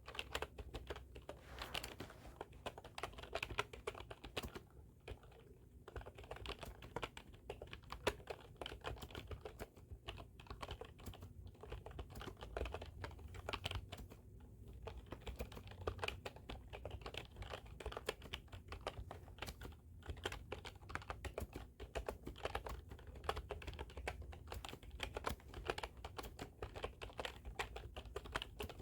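Typing on a computer keyboard: fast, continuous key clicks, with a few short pauses between runs.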